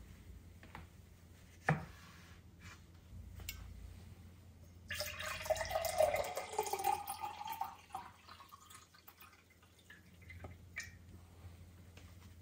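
Water poured from a glass carafe into a drinking glass for about three seconds, the pouring note rising as the glass fills. A single sharp knock comes about two seconds in, and a few light clinks of glass follow the pour.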